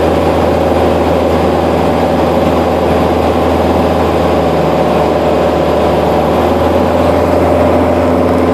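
Socata TB9 Tampico's four-cylinder piston engine and propeller droning steadily, heard inside the cabin in flight.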